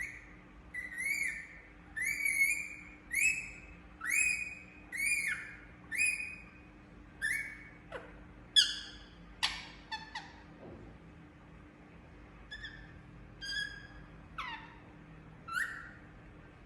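Indian ringneck parakeet calling: a run of short, shrill calls at about one a second, then a few calls that fall steeply in pitch, and a handful of sparser calls near the end.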